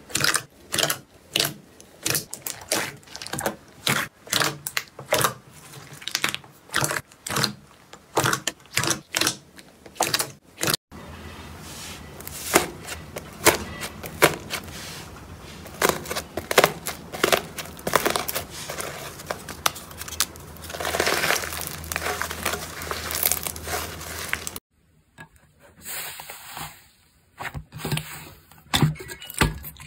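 Slime being squeezed and poked by hand: a run of sharp crackling pops about two a second, then, after a cut, a denser crinkling crackle over a low steady hum, and after another cut sparser, quieter pops.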